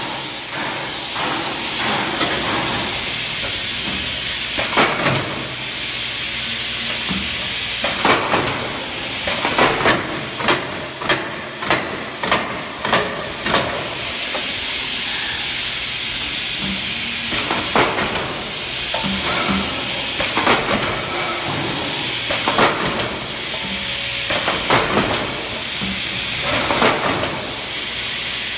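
Riveting machine being worked: irregular sharp clanks and clicks, often several in quick succession, over a steady loud hiss.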